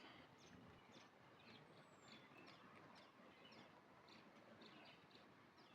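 Near silence: faint, scattered bird chirps over a quiet outdoor background, with one thin falling whistle about two seconds in.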